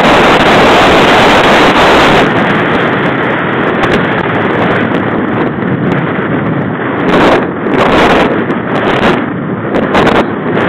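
Wind buffeting the microphone of a camera on a mountain bike riding up a gravel road. The noise is loud and dense, eases a little about two seconds in, and has several short louder surges in the second half.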